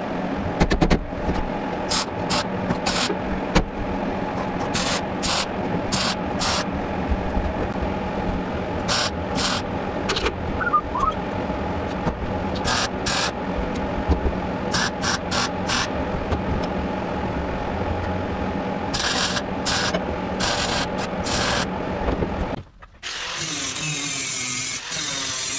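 MIG welder laying a string of short tack welds, each a brief crackling burst, with pauses between them, over a steady hum. Near the end the sound cuts out and a different steady tool noise starts.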